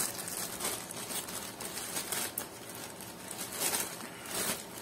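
Soft, irregular rustling and crinkling with a few light clicks as a plastic refrigerator basket is handled.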